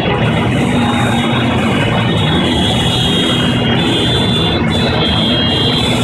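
Dozens of vintage two-stroke Vespa scooters running and revving together in a dense, steady din, with high steady buzzing tones on top.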